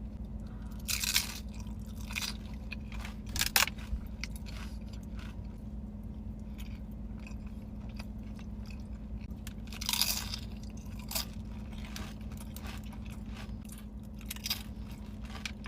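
Close-miked chewing of crunchy food, with several sharp crunches from bites and chews, the loudest about 3.5 and 10 seconds in, over softer chewing.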